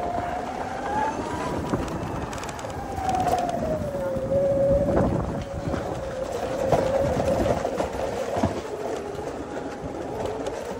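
Electric scooter's motor whining as it rides, the pitch rising to a peak about a second and a half in, falling back by about four seconds, then holding steady, over a rushing noise with a few knocks.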